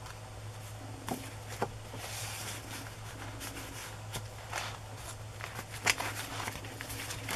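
Paper handling: soft rustles and a few light taps and clicks as a card and the pages of a handmade paper journal are moved and turned, over a steady low hum.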